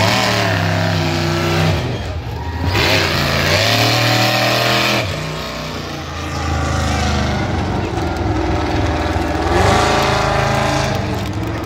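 Monster truck engine revving hard, rising and falling in pitch through three loud stretches of throttle.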